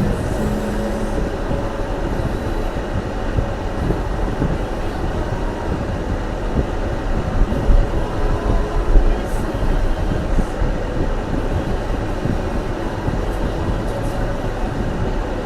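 A car driving on snowy roads, heard from inside the cabin: a steady low rumble of tyre, road and engine noise, with a few louder bumps about eight to nine seconds in.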